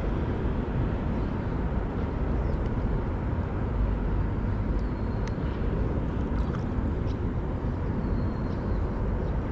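Steady low outdoor rumble with no distinct events, and two faint short high chirps about five and eight seconds in.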